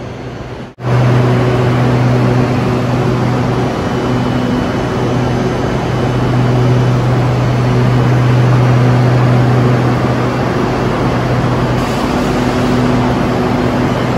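SRT Red Line electric commuter train moving along the platform: a loud, steady low hum over a broad rushing noise, with no rise or fall in pitch.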